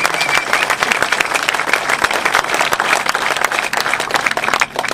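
Crowd applauding, dense clapping that dies away near the end.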